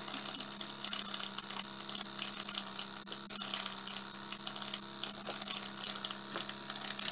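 Small vertical model steam engine with a D-valve running fast and steady: a continuous buzzing hum with faint, irregular light ticks.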